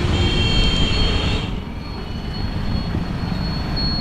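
Low rumble of wind and road noise picked up by a camera on a moving bicycle in wet traffic, with a faint steady high whine. A hiss over the top drops away about one and a half seconds in.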